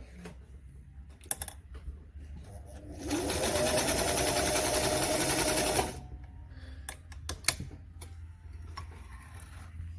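Singer 348 sewing machine stitching a full zigzag through five layers of denim for about three seconds, starting about three seconds in. Its motor rises in pitch as it comes up to speed, then runs steadily until it stops suddenly. A few short clicks come before and after the run.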